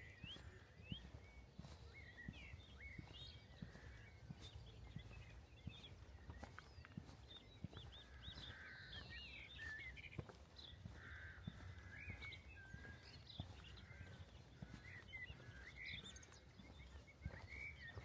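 Faint chirps and short songs of several small birds, over a low steady rumble and soft walking footsteps.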